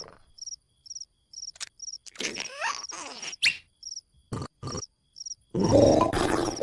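Cricket chirping steadily, about two short high chirps a second. Over it are cartoon sound effects: clicks and quick sliding squeaks in the middle, two short thuds, and a loud noisy outburst starting about a second before the end.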